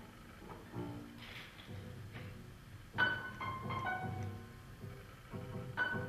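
Two grand pianos playing sparse jazz: scattered single notes and chords left to ring out, with a louder struck chord about halfway through and another near the end.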